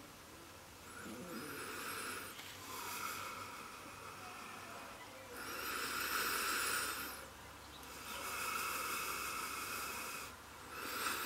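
A person breathing slowly and evenly close to the microphone, about five breaths of one to two seconds each, a faint whistle on the first and last.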